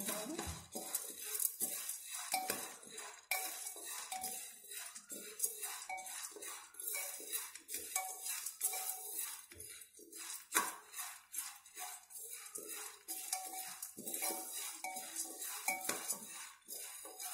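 A metal spoon stirring and scraping unpopped popcorn kernels around the bottom of a steel pressure cooker, the hard kernels rattling and clinking against the metal in quick, repeated strokes.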